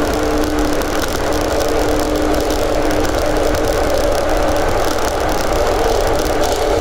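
Inside a carriage of a JR 415 series electric train running at a steady speed: steady wheel-on-rail rumble with a level hum at an even pitch.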